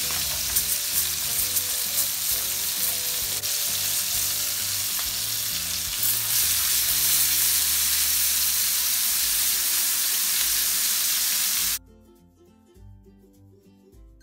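Skewered horse mackerel and onion slices sizzling as they fry in hot oil in a pan: a dense, steady hiss with a few light clicks early on. The sizzle grows louder about halfway through and cuts off suddenly near the end, leaving faint music.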